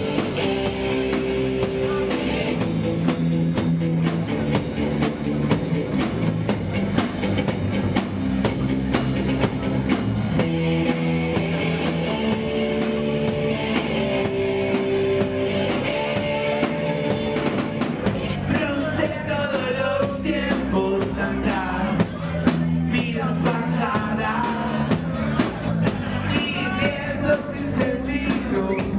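Live punk rock band playing: distorted electric guitar chords over a drum kit, with a male voice singing over it from a little past halfway through.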